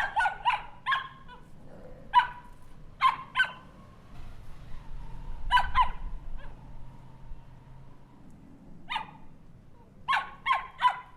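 Small dog barking: about a dozen short barks in bursts of one to four, with pauses of a second or more between bursts.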